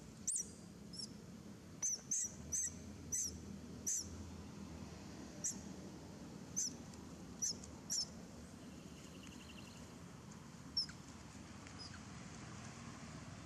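A young long-tailed macaque giving short, high-pitched distress squeals after being bitten by an adult female. The squeals come about a dozen times at uneven intervals, close together in the first eight seconds and then only now and then.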